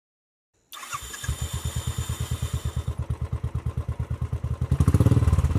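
Motorcycle engine starting on its electric self-starter, triggered by the fingerprint lock, then running with an even beat of about ten pulses a second that grows louder near the end.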